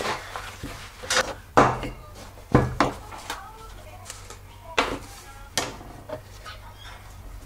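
Plastic Aeropress parts being handled and set down on a hard countertop: about half a dozen sharp, separate knocks and clatters at irregular intervals.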